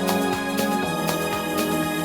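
Live band music with sustained chords over a steady beat; the chords change about a second in.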